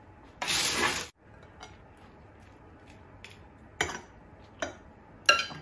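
Utensils clinking and tapping on a ceramic dinner plate as salad is served onto it with chopsticks and a fork: a few sharp, separate clicks. Near the start there is a brief, louder scraping swish.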